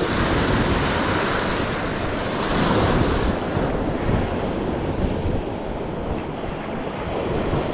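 Small Gulf surf waves breaking and washing up the sand in the shallows, swelling a little about three seconds in, with wind buffeting the microphone.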